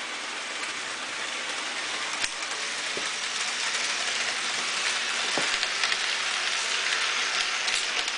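Model train running along the layout's track: a steady hissing rattle of wheels and motor that grows louder as the train comes closer, with a few sharp clicks.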